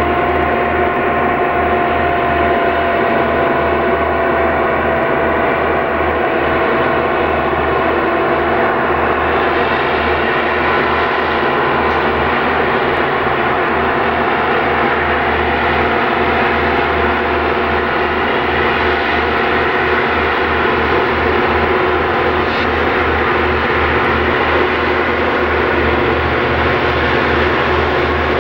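Southern Pacific SD40T-2 diesel-electric locomotives, turbocharged EMD 16-cylinder engines, working hard up a steep grade: a loud, steady heavy engine drone with a high steady whine over it.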